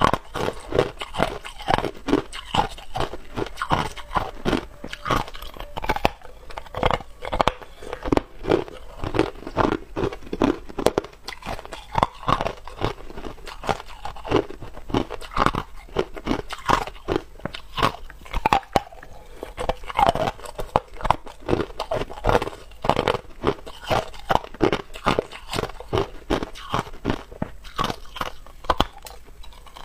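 Hard ice being bitten and chewed, close to a clip-on microphone: a continuous run of sharp cracks and crunches as the ice breaks between the teeth.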